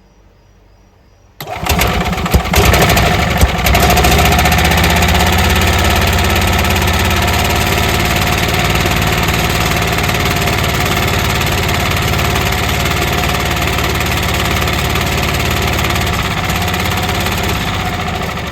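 Golf cart's small gas engine starting suddenly about a second and a half in, then running steadily and loud. The owner says it acts like it has no power and suspects someone has been messing with the carburettor adjustment screw.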